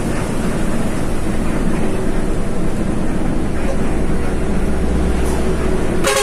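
Intercity bus driving at speed, heard from inside its cabin: a steady engine drone and road rumble that deepens in the middle, with one sharp click near the end.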